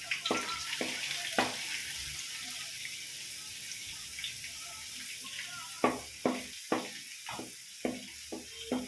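Sliced ginger and garlic sizzling in hot coconut oil in an uruli, with a steady hiss and a ladle knocking and scraping against the pan as it is stirred. The stirring strokes come quickly and regularly in the second half.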